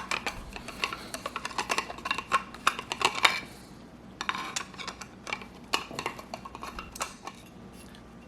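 Small metal parts and tools of an AR-15 lower receiver being handled, giving irregular sharp clicks and clinks, thickest in the first few seconds.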